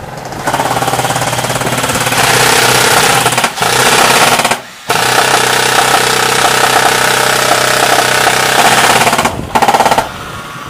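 Airsoft electric rifle, a VFC KAC PDW, firing long full-auto bursts in rapid rattling strings. It breaks off briefly about 3.5 s in, pauses for a moment just before 5 s, and stops near the end. The owner reckons its rate of fire is too fast for its piston.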